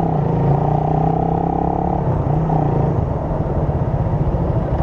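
Motorcycle engine running at low speed, heard through a mic inside the rider's helmet: a steady pitched hum that turns rougher and more pulsing about halfway through.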